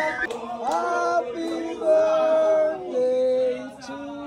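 Singing: a voice holding a melody in long notes, growing quieter near the end.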